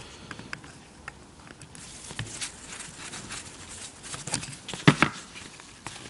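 Small clicks and taps of a Tillotson chainsaw carburettor being taken apart by hand: screws undone with a screwdriver and the metal pump cover lifted off. There is a louder knock about five seconds in.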